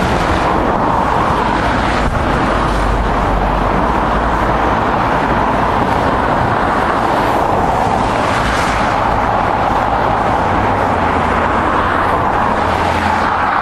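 Steady rushing noise with a low rumble underneath, unbroken throughout.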